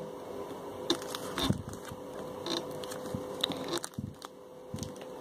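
Hands handling and peeling a layer of a homemade paper package: soft, scattered paper crinkles and small taps, with a faint steady hum underneath.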